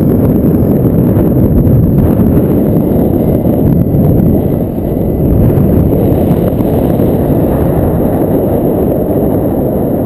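Loud wind rushing and buffeting over the camera microphone of a paraglider pilot in flight, a rough, gusting rumble with no engine.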